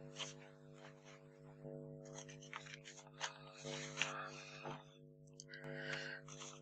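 Faint rustling and light scraping of a paper towel as it is handled to blot blue watercolour from a brush, with a few soft brush and paper clicks. A steady low hum runs underneath.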